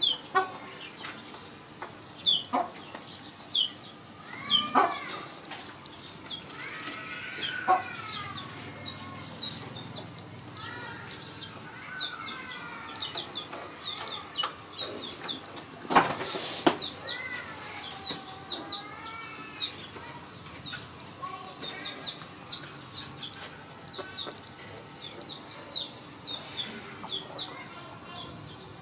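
Chickens clucking with chicks peeping, many short high chirps throughout and several longer arching calls. A few sharp knocks break in, the loudest about halfway through.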